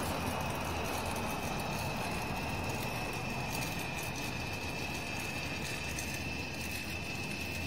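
Steady background rumble and hiss with a faint constant high whine, and no distinct events.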